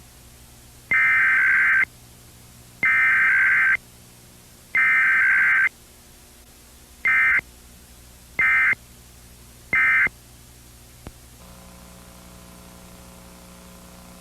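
Emergency Alert System SAME digital data bursts: three longer header bursts about a second apart, then three short end-of-message bursts, sent for a Required Weekly Test. A faint steady hum sits underneath and grows slightly near the end.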